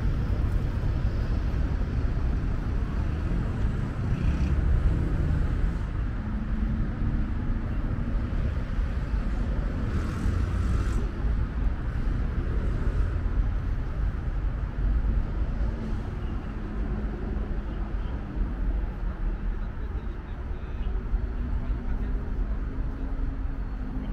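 Steady city traffic rumble: cars and buses passing on a busy street, a continuous low hum with no single standout event.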